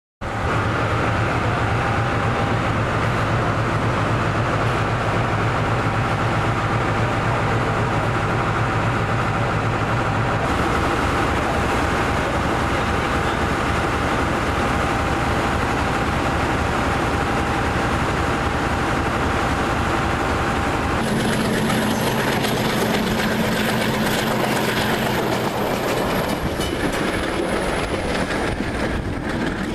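Diesel train sound in two parts. First a steady hum with held tones from the train standing at the station platform. About two-thirds of the way in it changes to a passenger train running, heard from a carriage window: steady running noise of wheels on rail with scattered clicks over the rail joints.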